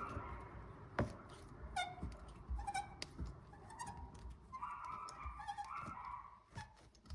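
Hand tools and metal parts clinking and knocking while the front brake caliper is worked off its carrier, with a few short squeaky metal sounds in between.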